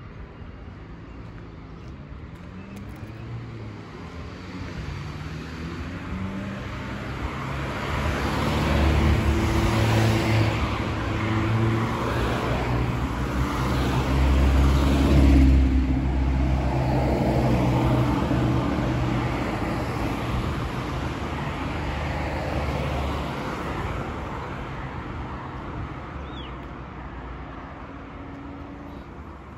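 Road traffic passing close by: a few vehicles go by one after another, their tyre noise and engine hum swelling to a peak in the middle and then fading away.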